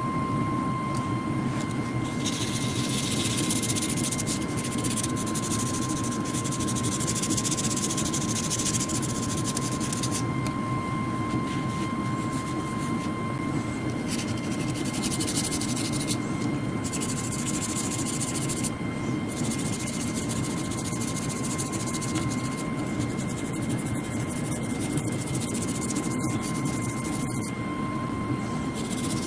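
A machine running steadily with a constant high whine, overlaid by a hiss that starts and stops several times.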